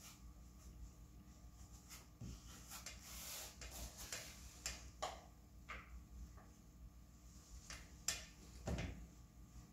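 Faint hand-work noises: scattered light clicks and taps, a brief rubbing scrape about three seconds in, then a sharper knock followed by a dull thump near the end.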